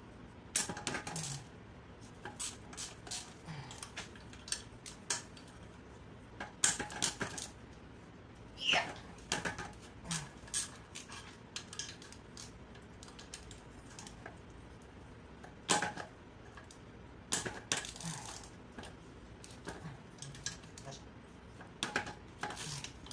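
Wrench and metal hand tools clicking and clinking irregularly against the cylinder head of a small gasoline generator engine as its head bolts are worked loose, with a few louder metallic knocks.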